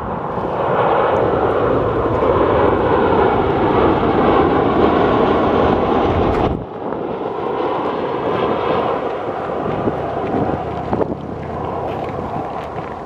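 Boeing 737-800 jet airliner on final approach with its landing gear down, the loud rumble and whine of its CFM56 turbofan engines passing close overhead. The sound cuts off abruptly about six and a half seconds in, and a quieter, more distant jet sound follows as the airliner descends toward the runway.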